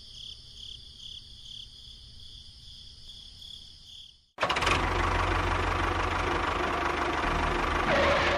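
Small motor running with a pulsing high whine. About halfway through it cuts suddenly to a much louder mechanical run with a deep, throbbing rumble.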